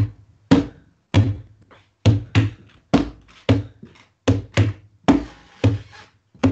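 Large hand drum played in the capoeira rhythm (toque de capoeira). Deep open-hand strokes on the centre of the head alternate with lighter finger taps at the edge, in a repeating pattern of about two strokes a second.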